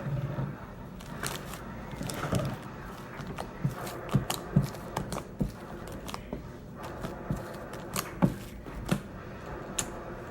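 Homemade glue-and-shaving-cream slime being mixed and kneaded, giving irregular sticky clicks, pops and squelches.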